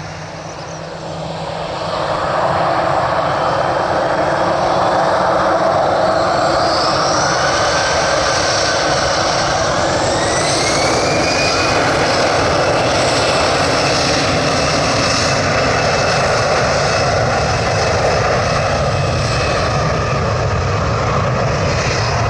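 Airbus A320-214's CFM56 turbofan engines spooling up to takeoff thrust about two seconds in, then a steady loud jet roar with a rising whine as the airliner accelerates on its takeoff roll.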